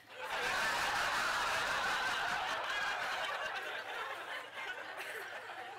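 Audience laughing at a stand-up comedian's punchline. The laughter swells at once and slowly dies down.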